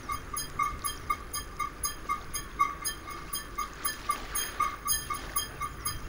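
A small animal's call: short, high chirps repeating evenly, about four a second.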